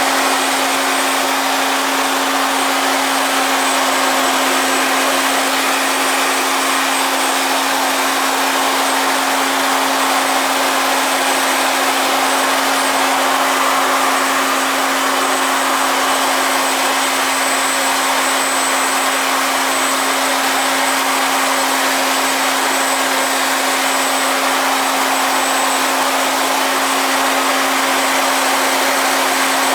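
Handheld 700 W cold-spark jet gun firing indoor spark powder: a steady rushing blast over a constant motor hum, unbroken throughout.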